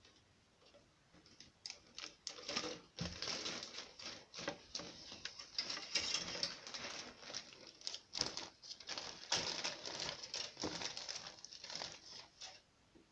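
Clear plastic bags holding plastic model-kit parts crinkling and rustling as they are handled, with many small crackles and clicks, starting about a second and a half in and stopping near the end.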